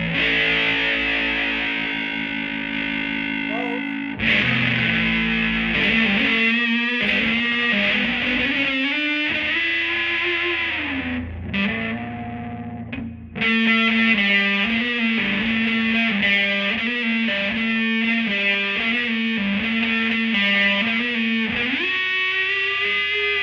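Electric guitar, a Telecaster, played through a Bugera V22 tube amp and a 1960 Rola Alnico 5 12-inch speaker with a driven, effected tone. A ringing chord gives way about four seconds in to a melodic line with string bends, which breaks off briefly past the middle and then carries on.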